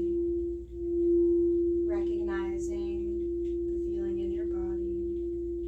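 Singing bowl sounding one steady, pure, sustained tone. It dips briefly and swells back louder about a second in. A soft voice sounds briefly twice over it.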